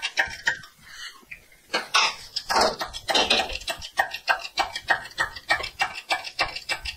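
Rapid, even metallic clicking, about four to five clicks a second, from about three seconds in, after a stretch of metal scraping and clanking.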